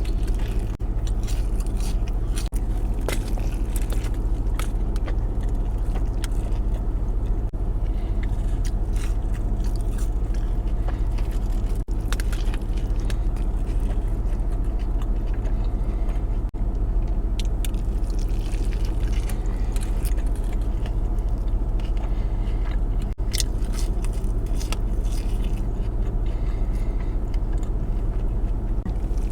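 Close-up biting and chewing of a bacon cheeseburger, with scattered wet crunches and clicks. Under it runs a steady low engine hum, like a car idling.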